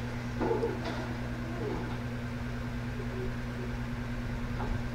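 Steady low hum over faint room noise, with a brief faint sound about half a second in.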